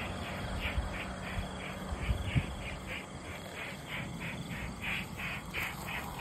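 A night creature in the grass calling with short raspy chirps in an even rhythm, about three a second. Low thuds of footsteps and rustling through grass sound now and then, the loudest about two and a half seconds in.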